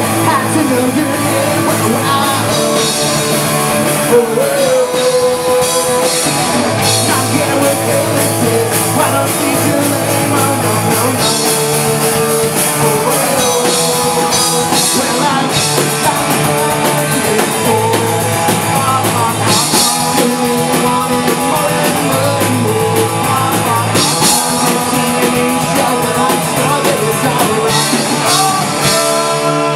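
Pop-punk band playing live: electric guitar, bass guitar and drum kit, with a singer.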